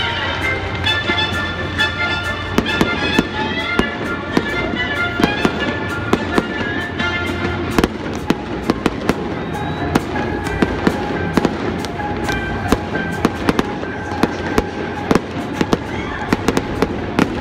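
Stadium fireworks display: a rapid string of sharp bangs, coming more often from about halfway through, over music with held notes that is most prominent in the first half.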